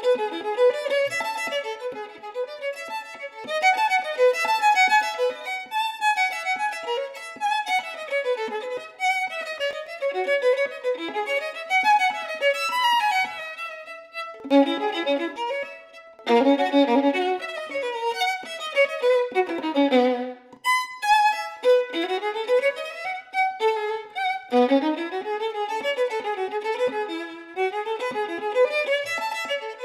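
Unaccompanied violin, a c.1850 French violin by Charles Buthod, playing a fast classical passage of running scales up and down with a few chords, with a short break about two-thirds of the way through.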